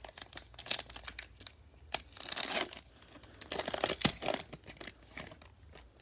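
A trading card pack wrapper crinkling and tearing as it is opened, with light clicks of the cards being handled.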